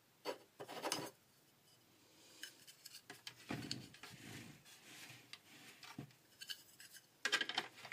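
Hard plastic shape-sorter toy being handled and turned by hand: faint scattered clicks and plastic rubbing, with a few sharper clicks near the end.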